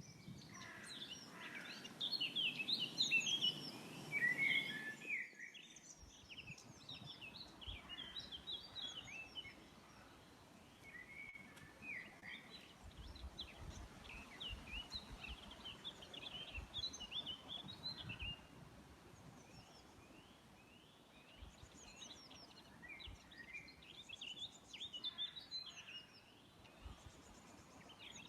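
Several birds singing, a dense overlapping run of short chirps and quick trills, with a steady hiss under it that cuts off about five seconds in.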